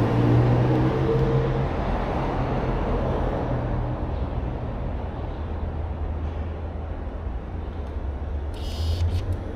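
Steady low vehicle rumble, as of traffic going by.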